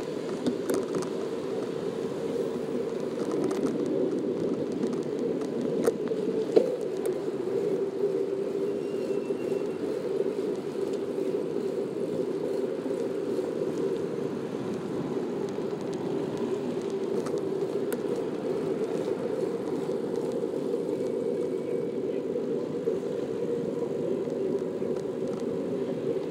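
Steady rolling noise of a bicycle riding along an asphalt bike path, mixed with the sound of city traffic on the road beside it. There are two sharp knocks about six seconds in.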